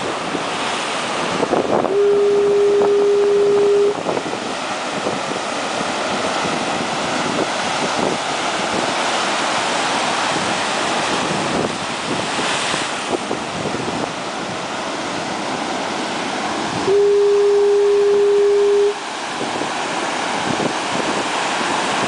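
Two long blasts of a foghorn, each a single steady tone lasting about two seconds, the first about two seconds in and the second about three-quarters of the way through. Breaking ocean surf hisses and washes steadily underneath.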